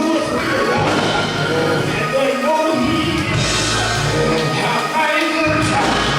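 Church music: instruments with a sustained bass line, and a voice singing over them.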